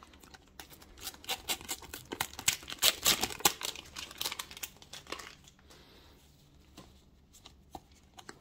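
Panini sticker packet being torn open and its wrapper crinkled: a dense run of crackling for a few seconds, then scattered ticks as the stickers inside are handled.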